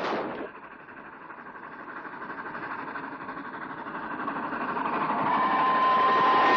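Steam locomotive running toward the listener, its rhythmic chugging growing steadily louder. A steady high tone sounds over it from about five seconds in.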